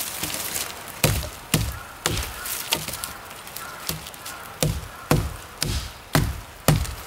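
Hatchet chopping through a dead branch: about ten sharp wooden chops, roughly two a second, with a short pause between the third and fourth.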